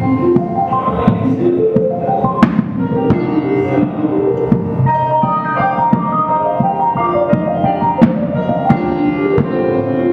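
Live improvised band music: an electric keyboard plays runs of short notes over scattered drum and percussion hits, with sharp strikes about two and a half and eight seconds in.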